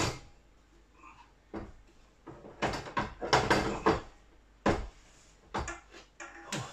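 Knocks and clatter of an Alpha boiler's internal parts being handled and pushed back into place by hand, a few separate knocks with a denser, louder run of clatter a few seconds in.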